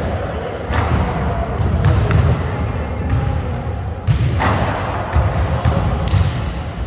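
Basketballs bouncing on a hardwood gym floor: a string of irregular thuds echoing in a large hall.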